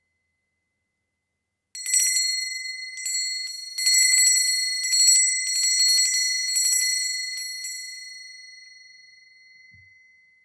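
Doorbell: a small metal bell rung in about seven quick bursts of rapid strikes, starting a couple of seconds in, then left ringing and fading out near the end.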